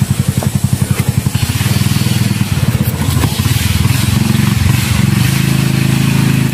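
An engine running, with a quick, even pulse at first that settles into a steadier hum after a second or two.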